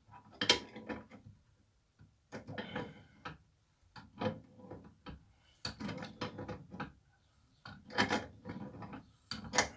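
Wert universal self-gripping wrench ratcheting on a bolt as it is worked back and forth to loosen it: about six short bursts of metallic clicking, spaced a second or two apart.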